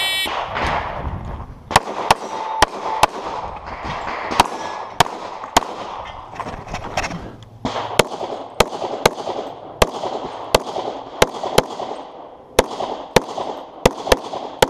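A shot timer beeps once at the start, then a handgun fires a rapid string of about two dozen sharp shots, mostly two or three a second with a brief pause early on, as a USPSA stage is shot.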